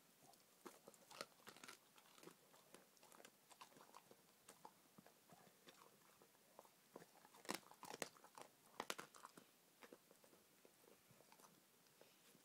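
A collie-shepherd mix dog chewing and crunching the bones of a raw rabbit rack. Faint, irregular cracks come at random, with the loudest cluster a little past halfway.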